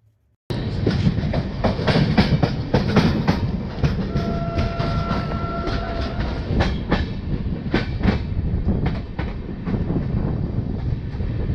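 LHB passenger coaches of an Indian Railways express running at speed, wheels clattering over rail joints amid a steady rush of running noise. About four seconds in, a steady horn tone sounds for about two seconds.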